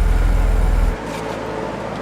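A car engine's deep, steady low rumble, which cuts off abruptly about a second in, leaving a quieter steady hum of a car and traffic.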